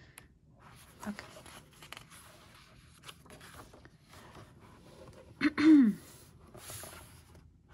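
Paper pages of a printed planner and photo book being turned and rubbed flat by hand: soft rustling and light page flicks. About five and a half seconds in, a short voiced exclamation with a falling pitch, the loudest sound.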